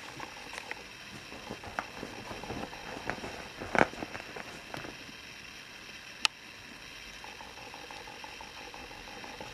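Steady background hiss with scattered soft taps and rustles, a louder rustling click cluster about four seconds in and one sharp click a little past six seconds.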